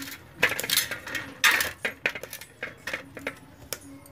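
A whole pohala fish being rubbed with turmeric and salt on a steel plate: irregular scrapes and clinks of the fish and hand against the metal plate. They stop shortly before the end.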